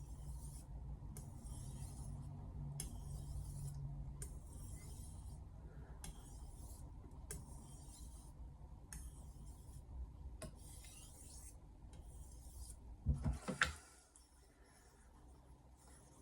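Steel blade of a 210 mm Misono Japanese knife being stroked on a whetstone, a rhythmic rasping of about one stroke a second. A few sharp knocks come about thirteen seconds in.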